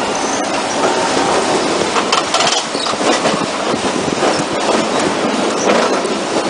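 Nilgiri Mountain Railway toy train running on its rack line: a steady loud rattle of the carriage, with wheels clacking on the rails.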